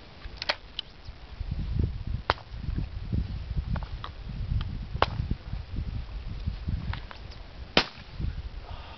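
Shotgun fired at doves overhead: three sharp reports a few seconds apart, the last the loudest, over a low rumble.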